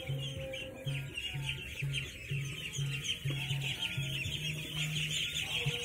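A pen full of young hybrid meat ducks calling together: a dense, unbroken chorus of short high peeps, with a low sound underneath that comes and goes about twice a second.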